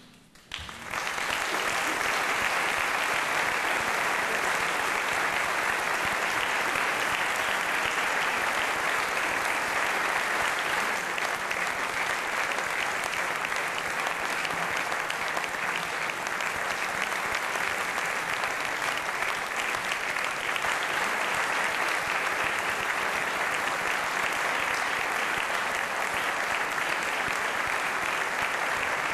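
Audience applauding steadily, starting about a second in.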